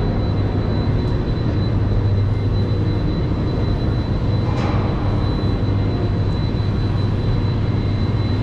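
Steady machinery hum in the Hoover Dam generator hall from the running hydroelectric generators: a constant low drone with a thin, steady high tone above it.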